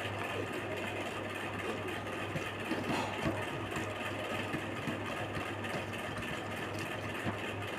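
Steady low machine-like hum with a slight pulsing, and scattered short clicks and smacks over it, a few louder ones about three seconds in.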